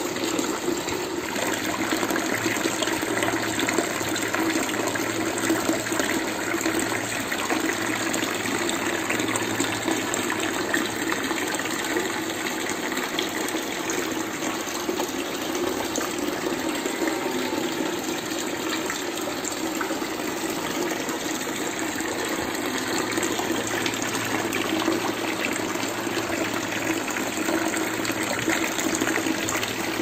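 Water from a small tabletop fountain pouring steadily out of two fish-mouth spouts and splashing into the basin below.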